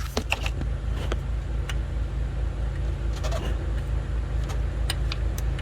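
Metal clinks of a socket and ratchet being fitted onto an engine's oil pressure sensor: a quick cluster of sharp clicks at the start, then single clicks now and then, over a steady low hum.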